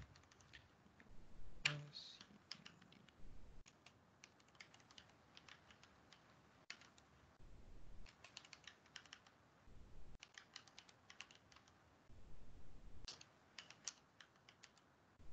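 Computer keyboard being typed on: faint key clicks in short bursts, with a louder knock about two seconds in.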